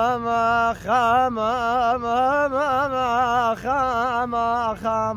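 A man singing unaccompanied in Arabic folk style: long held notes with wavering, trilled ornaments, sung as a few drawn-out phrases with short breaks between them.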